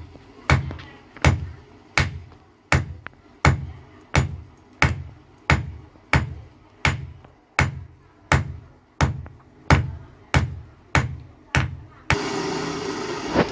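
Hand hammer forging a red-hot steel chisel blank on a steel anvil: about seventeen blows at an even pace of roughly three every two seconds, each with a short metallic ring. Near the end the blows stop and a steady noise takes over.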